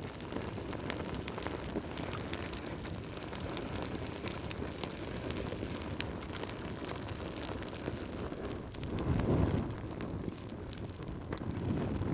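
Fire in a fireplace crackling: many small sharp pops and snaps over a steady low rumble of flames. The rumble swells briefly about nine seconds in and again near the end.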